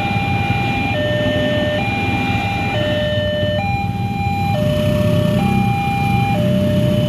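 Electronic two-tone warning alarm of a railway level crossing, switching between a higher and a lower tone about once a second, over a low rumble of traffic.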